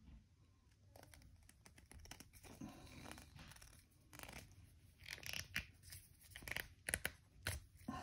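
Hand wire strippers working on a thin insulated wire: faint scattered clicks, snips and scraping as the worn metal jaws bite and pull at the plastic insulation, busier and louder in the second half.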